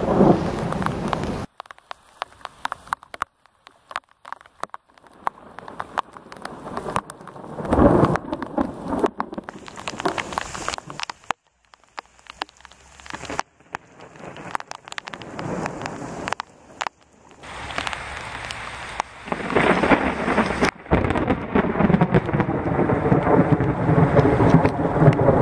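Thunderstorm. A rumble of thunder cuts off shortly after the start, a loud clap of thunder comes about eight seconds in, and a long peal of thunder builds from about eighteen seconds. Rain pattering and crackling fills the quieter stretches in between.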